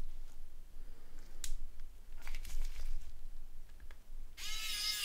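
Small plastic phone-housing parts being handled and fitted, with a few light clicks, then a brief high squeal near the end.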